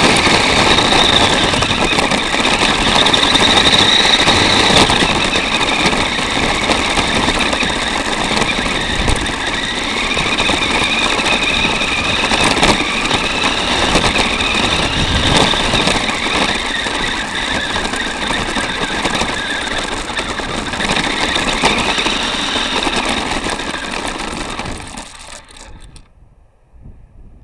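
Electric motor and gears of a 4x4 radio-controlled car running, a whine that rises and falls in pitch with its speed over a steady rattle and clicks. The sound cuts out shortly before the end as the car stops.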